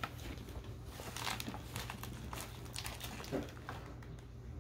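Faint rustling and scattered light clicks from small plastic toy pieces and packaging being handled, over a low steady hum.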